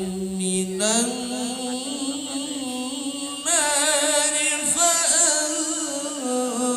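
A man reciting the Quran in the melodic tilawah style through a microphone and loudspeakers. He holds long notes that step up in pitch about a second in, then breaks into wavering ornaments in the middle.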